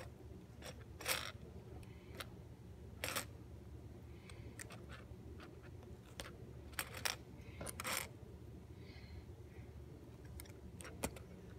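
Plastic LEGO pieces clicking and clattering as they are handled and pressed onto plates, about a dozen short sharp clicks at irregular intervals. A faint steady hum runs underneath.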